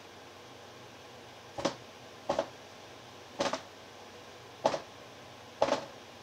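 Five knocks of a rubber mallet on a ceramic tile, unevenly spaced, each a quick double knock. The tapping spreads wet acrylic pour paint and brings up cells.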